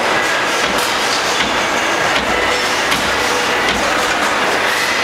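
LVD Shape Delta 1250 CNC turret punch press running: a steady mechanical clatter with a few irregular sharp knocks.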